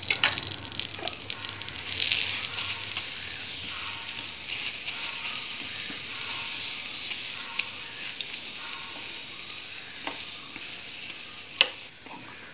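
Puran poli frying in oil on a flat nonstick pan, sizzling steadily. The sizzle swells about two seconds in and then slowly eases, and a sharp tap comes near the end.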